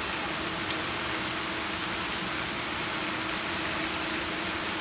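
Steady rushing background noise with a faint low hum underneath; no distinct event stands out.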